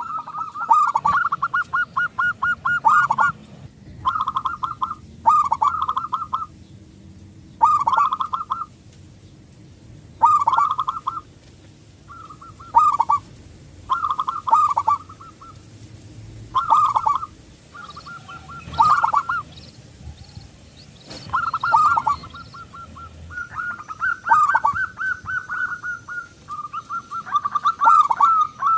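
Zebra dove (local Indonesian perkutut) cooing: repeated bursts of rapid, trilling coos, each a second or so long with short pauses between, and longer runs near the end.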